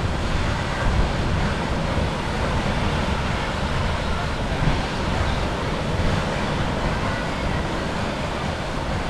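Surf washing on a beach, with wind rumbling on the microphone.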